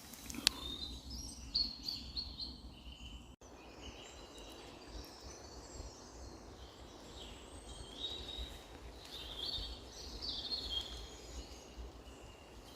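Songbirds singing in woodland, a series of short warbling phrases one after another, over a low steady rumble. A sharp click comes about half a second in, and the sound drops out for an instant a little over three seconds in.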